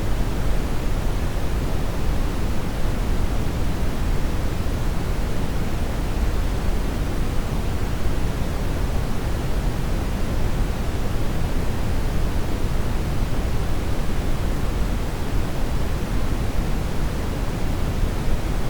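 Steady, unchanging generated noise: an even hiss with no events in it, strongest in the low end and fading toward the highs.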